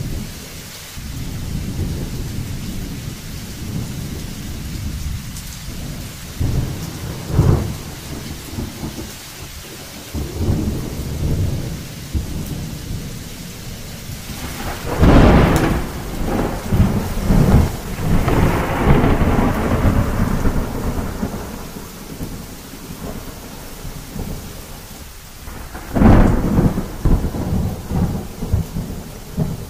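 Thunderstorm: thunder rumbling and rolling continuously over steady rain, with a sharp loud clap about halfway through and another near the end, and a smaller crack about a quarter of the way in.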